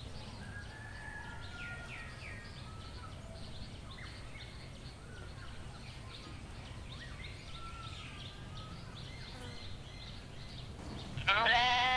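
Faint bird chirps over a steady low background rumble; near the end a bleating animal gives one loud, long wavering bleat.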